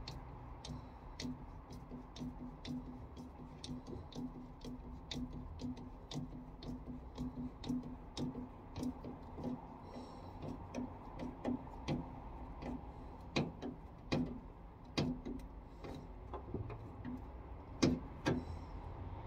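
A hand tool clicking in a car's engine bay in a steady rhythm of about two clicks a second, then a few louder, irregular clicks and knocks near the end.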